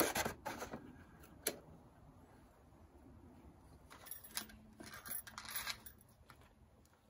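Hands handling a PVC drain cleanout and a rubber inflatable pipe test plug: a clatter right at the start, a sharp click about a second and a half in, then rubbing of rubber and light metallic clinking between about four and six seconds in.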